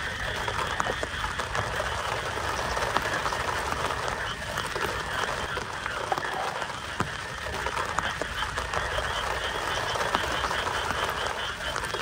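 A chorus of frogs calling steadily over falling rain, with scattered short ticks.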